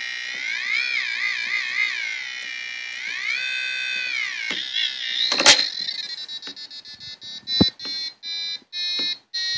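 Piezo element driven by an Arduino Uno, sounding a continuous electronic tone. Its pitch glides up and down and wobbles as a finger slides along a soft potentiometer strip. About five and a half seconds in there is a click, and the tone then breaks into rapid short beeps at stepped pitches as pushbuttons are pressed.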